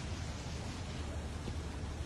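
Steady noise of heavy rain and wind, with a low rumble on the microphone.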